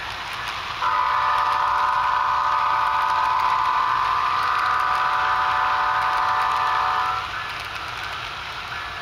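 Diesel locomotive horn from a sound-equipped HO scale model train: one long, steady blast of several tones, starting about a second in and cutting off near the end. Under it runs the continuous rolling of model freight cars passing.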